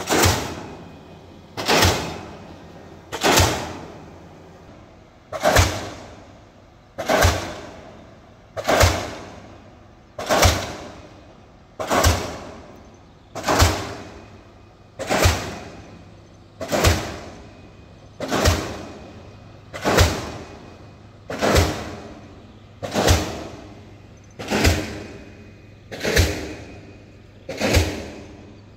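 Pile-driving hammer striking a concrete pile, one heavy blow about every one and a half seconds, each blow ringing briefly before the next.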